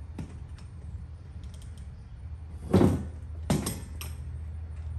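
Knocks and clatter of metal tools working a tire off a hand truck wheel rim to get at the inner tube. There are two louder knocks a little past halfway, under a second apart, over a steady low hum.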